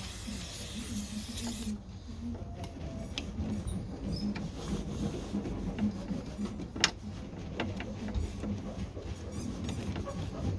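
Hands working a small metal bonnet catch mechanism while cleaning the rust out of it: a brief hiss at the start, then scattered light clicks and rubbing, with one sharp click about seven seconds in, over a steady low hum.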